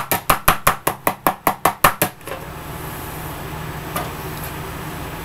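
Hammer striking a bent metal license plate on a wooden block in a fast, even run of about six blows a second, flattening it out. The blows stop about two seconds in, leaving a steady low hum, and one lighter knock follows about four seconds in.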